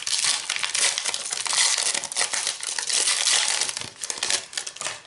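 Foil wrapper of a Pokémon TCG booster pack being torn open and crinkled by hand, a dense crinkling that fades out near the end.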